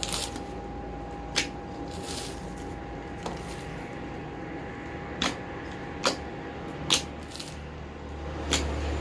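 Slime being kneaded and mixed by hand, giving several sharp wet pops at irregular intervals over a faint steady hum.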